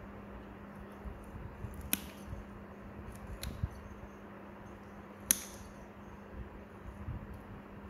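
Steel nail nippers snipping a thick fungal toenail: sharp, isolated clicks, the loudest about two seconds in and about five seconds in, with a couple of fainter snips between, over a steady low hum.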